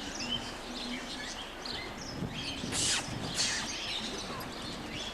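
Birds chirping against busy background noise, with two short bursts of hiss about three seconds in.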